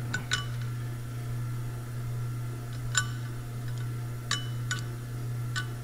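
Scattered light metallic clinks, about five, as a steel ball-bearing cage is worked into a Bonfiglioli final drive gearbox housing, with balls and cage knocking against the steel. A steady low hum runs underneath.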